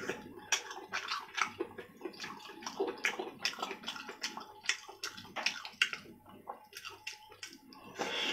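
Close-up wet mouth sounds of chewing and sucking on soft braised pork large intestine: a quick, irregular run of smacks and squelches, several a second.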